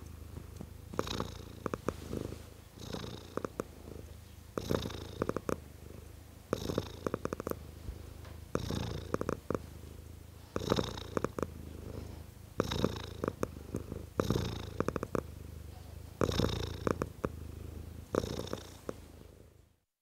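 Domestic cat purring, the purr swelling louder with each breath about every two seconds. It cuts off near the end.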